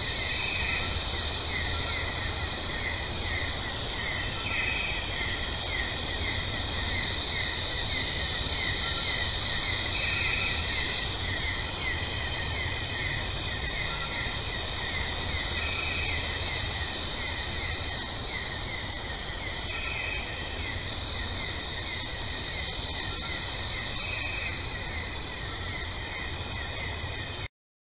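Insect ambience: crickets chirping in a fast, even pulse over a steady high insect drone, with a low rumble underneath. It cuts off suddenly near the end.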